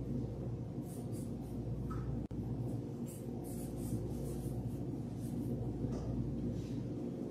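Steady low hum with scattered soft rustles and shuffles of people moving. The sound cuts out for an instant a little over two seconds in.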